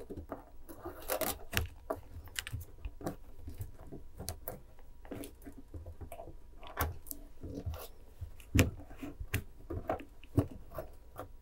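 Thin 1.2 mm craft wire being pulled taut and wound by hand around a thicker wire frame: irregular rubbing, scraping and small metallic clicks, with a couple of sharper clicks in the second half.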